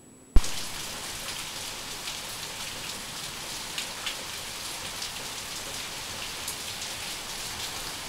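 Steady rain falling on a surface, a dense even hiss with scattered drop ticks. It starts abruptly with a sharp click a moment in.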